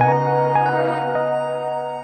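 Calm ambient background music: held notes over a steady low bass note, slowly fading.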